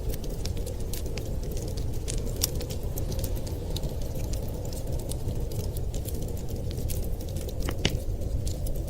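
Fireplace fire crackling with scattered sharp pops, one louder pop near the end, over a steady low rumble of blizzard wind.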